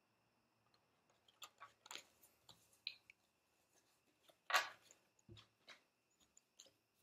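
Playing cards clicking and tapping on a glass tabletop as a house of cards falls and the loose cards are gathered up: a scatter of light clicks, with one sharper knock about four and a half seconds in and a few duller taps after it.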